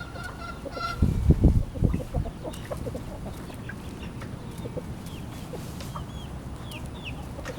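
A bird in the yard gives short clucking calls, with a few brief, higher curving chirps in the second half. A loud low rumble on the microphone comes about a second in.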